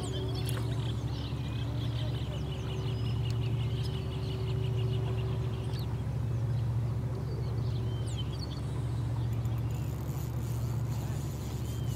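A steady low hum runs throughout. Over it, a small bird trills in a fast repeated series through the first half, with a few scattered chirps later. A faint fast ticking and a thin high whine come in near the end.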